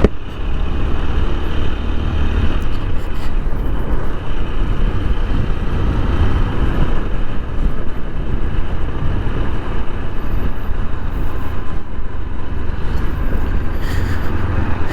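TVS Apache RTR 160 4V's single-cylinder engine running while riding, heard from a helmet-mounted camera with steady wind rush on the microphone.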